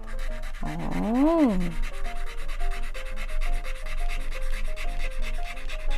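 Molotow ONE4ALL acrylic paint marker scribbling on paper in quick back-and-forth strokes while a colour swatch is filled in.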